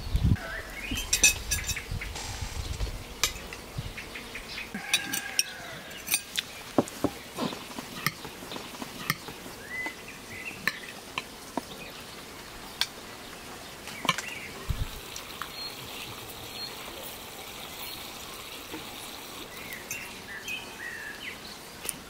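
Metal forks clinking and scraping on china plates during a meal, in short irregular clicks that come thickest in the first few seconds, with birds chirping now and then.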